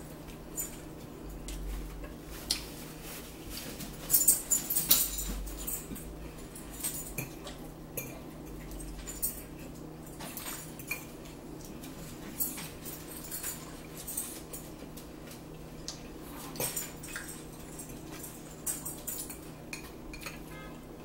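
Close-up eating sounds: chewing and lip smacking on a sloppy joe sandwich, with a fork clicking against a salad bowl and plates, the loudest cluster about four to six seconds in, over a steady low hum.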